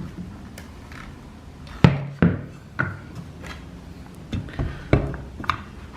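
A series of separate knocks and clunks, the loudest about two seconds in, from a circular saw and plywood being handled and positioned; the saw is not running.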